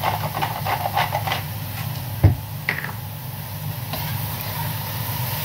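A seasoning bottle is shaken over a wok of vegetables in quick strokes, about five a second, for the first second and a half. A single sharp knock comes about two seconds in, and a steady low hum runs throughout.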